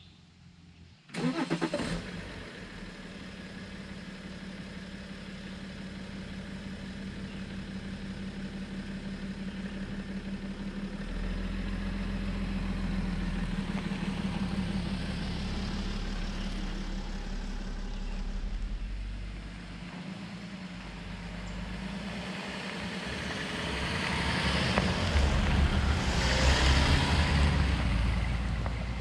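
Diesel BMW E70 X5's 3.0-litre straight-six starting about a second in with a sudden burst, then running steadily. The SUV pulls away and drives off down a dirt track, engine and tyre noise building to their loudest near the end.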